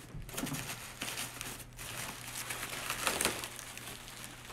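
Bubble wrap and plastic packaging crinkling and rustling in irregular crackles as hands unwrap a package and lift its bubble-wrapped cover away.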